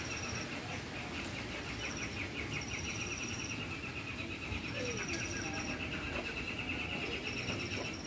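A small caged songbird singing a long, rapid, unbroken trill that stops near the end, with short high whistled notes over it every second or two. It is played as a courtship song to bring caged birds into breeding condition.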